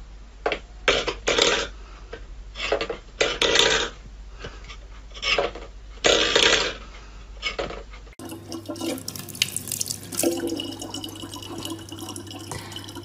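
A stainless steel bowl clattering and rattling on a wooden floor as a cat paws at it, in irregular sharp bursts for about eight seconds. Then a tap runs a thin steady stream of water.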